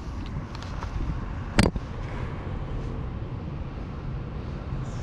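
A single sharp pop of a baseball smacking into a leather glove about one and a half seconds in, over a steady low rumble of wind on the microphone.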